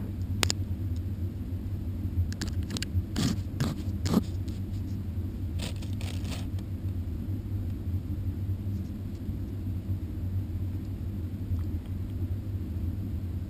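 Steady low rumble throughout, with a handful of sharp clicks and short scuffles in the first six seconds from a Maltese dog's paws and claws on the tile floor right beside the camera.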